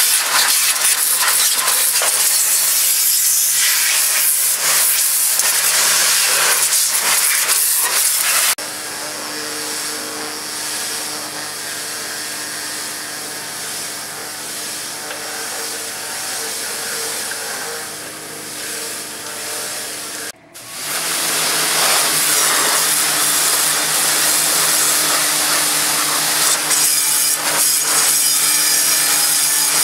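Electric pressure washer jet hissing loudly as it blasts water onto surfaces, with a steady hum underneath. About eight seconds in the spray drops to a quieter, more distant hiss. Just after twenty seconds, following a brief dropout, the loud close spray returns.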